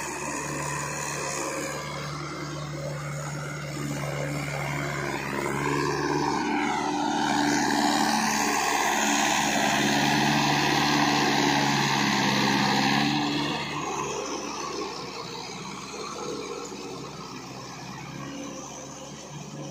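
Trakstar 545 tractor's four-cylinder diesel engine running steadily under load while its rotavator churns wet paddy mud. It grows louder as the tractor comes close, then fades about two-thirds of the way through.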